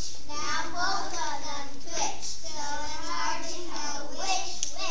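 A group of young children reciting a poem aloud in unison, their voices chanting together in phrases.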